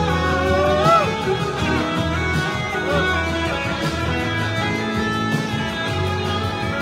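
Live band music led by an electric guitar, whose lead line glides up in pitch about a second in and again briefly near three seconds, over steady bass and band accompaniment.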